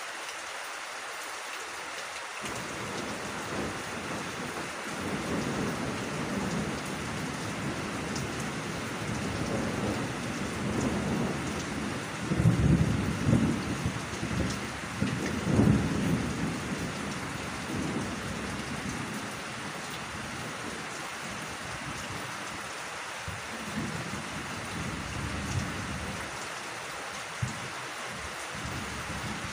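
Steady rain falling on the vegetation, with a long rumble of thunder that starts a couple of seconds in, is loudest about halfway through, and dies away near the end.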